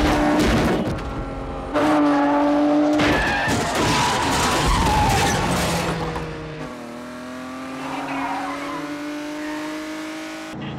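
Film car-chase sound of cars driven hard: engines revving high, with tyres squealing in the middle. Near the end a single engine note climbs steadily in pitch as the car accelerates.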